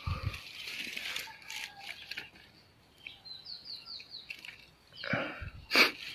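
Rustling and light knocks from bait and dry leaves being handled on the ground. A quick run of high, downward-sliding chirps comes about three seconds in, and a louder rustle with a sharp scrape comes near the end.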